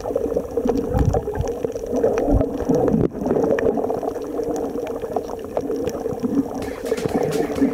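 Underwater camera audio while snorkelling: muffled sloshing and bubbling water against the camera, with scattered sharp clicks and a few low surges, and a short break about three seconds in.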